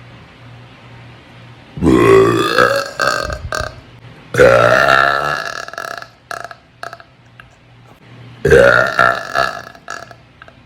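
Three long, loud burps, one after another, each loud at its start and trailing off over a second or two.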